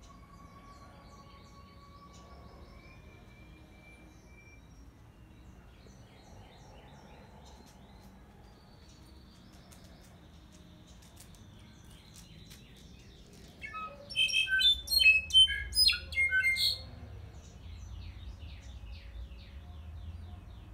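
Caged Mexican clarín (a Myadestes solitaire) singing. Soft scattered chirps and calls come first, then about 14 seconds in a loud, quick phrase of varied notes lasting about three seconds, some of them very high and ringing. Softer calls follow.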